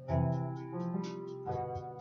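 Instrumental music: keyboard chords over a bass line, with a steady high ticking beat about five times a second.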